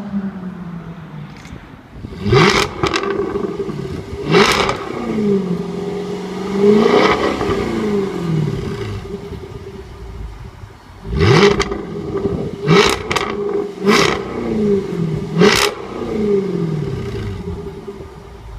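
Jaguar F-Type's supercharged engine revved in a series of blips, its pitch climbing and falling each time, with several sharp exhaust pops and crackles as the revs drop.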